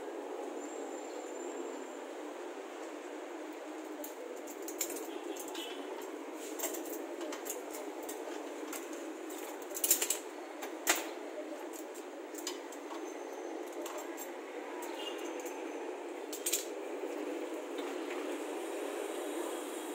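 Scattered metallic clicks and clinks of a hitch-mounted bike rack being seated and fastened in a tow hitch receiver, loudest about ten and eleven seconds in, over steady background noise.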